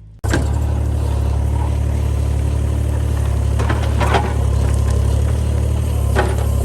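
Excavator engine running steadily under load, cutting in abruptly at the start, with a few sharp clanks a little over halfway through and again near the end.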